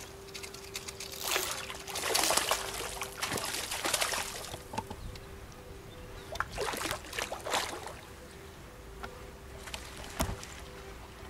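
Water splashing and trickling in the shallows as a hooked chub is brought in, in two spells of splashing about a second in and again about six seconds in, with scattered small clicks. A faint steady hum sits underneath throughout.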